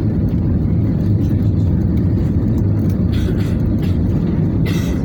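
Steady low rumble of engine and airflow noise inside the passenger cabin of an Airbus A320 on its descent to land.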